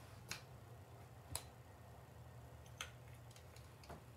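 Four faint, sharp clicks about a second apart over a steady low hum: small handling noises as a flashlight is picked up and moved about.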